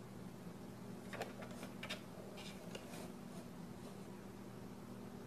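Faint taps and rustles as a cat noses and nudges a small cardboard box, a few light clicks in the first half, over a low steady hum.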